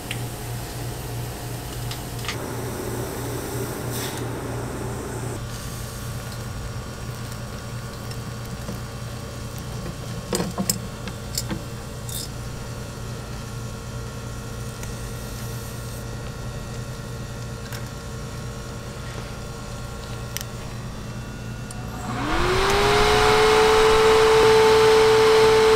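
Steady low hum of the waffle stall's equipment, with a few sharp metallic clicks of tongs and the cast-iron bubble-waffle iron. Near the end an electric cooling fan switches on: its whine rises quickly and settles into a steady tone under a loud rush of air.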